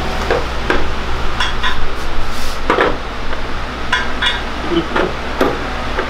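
Scattered metallic clinks and knocks, a dozen or so, some ringing briefly, over a steady low hum: hard objects such as tools or metal parts being handled.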